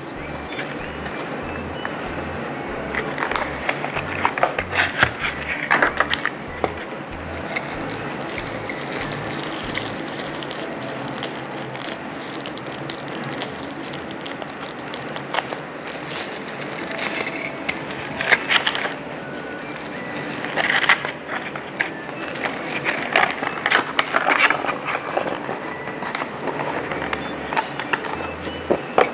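Crinkling, crackling and scraping of a diecast toy's cardboard box and plastic packaging as it is opened and the model unwrapped by hand, coming in irregular bursts.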